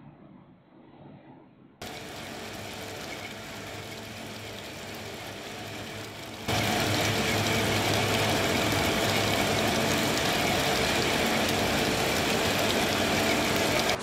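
Steady machine noise from metalworking equipment, with a constant hum. It comes in about two seconds in and turns much louder about six and a half seconds in.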